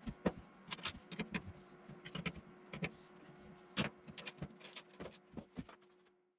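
Irregular small clicks and light knocks of hard parts and tools being handled while fitting something, over a faint steady hum.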